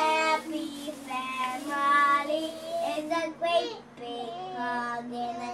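A young girl singing in a high voice, holding notes and sliding between them in short phrases.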